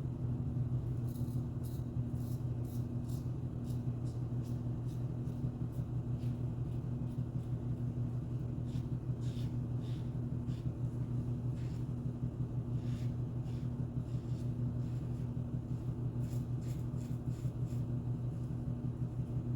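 Short scratchy strokes of a 1961 Gillette Gold Aristocrat adjustable safety razor cutting through lathered stubble, coming in spells of a few strokes a second, over a steady low hum.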